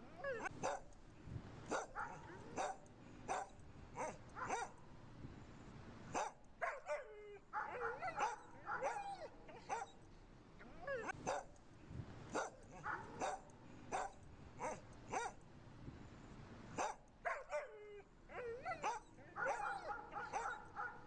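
Dogs barking: sharp, irregular barks that come in quick runs of several a second, broken by short pauses.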